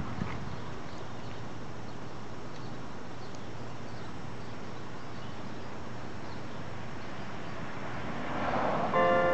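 Steady outdoor background noise with a low rumble. Near the end a church bell strikes and begins ringing.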